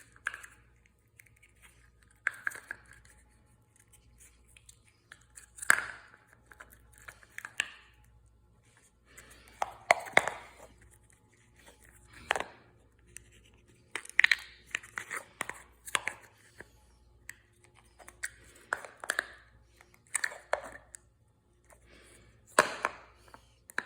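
Noise putty being squeezed and pressed in its tub, making a string of short squelching noises at irregular intervals of one to a few seconds.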